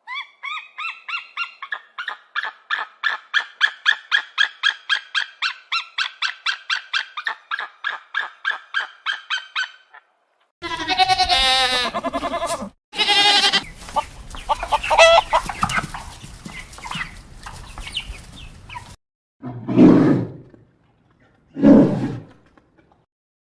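A series of animal calls: for about ten seconds, short pitched calls repeat evenly at about three a second, then a wavering call follows, and two short, lower calls come near the end.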